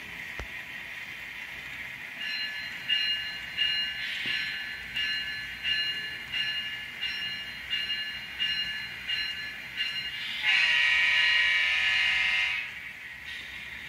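Model locomotive's DCC sound decoder playing a locomotive bell through its small onboard speaker, ringing about once every 0.7 s, then one horn blast of about two seconds near the end, over a steady hiss.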